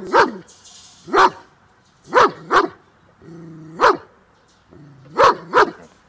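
German shepherd barking loudly and angrily: about seven sharp barks at uneven intervals, some in quick pairs.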